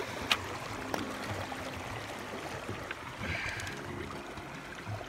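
Shallow river water lapping and trickling over a cobble shore, with a couple of small clicks in the first second and a brief splashing swish about three and a half seconds in as an agate is dipped to wet it.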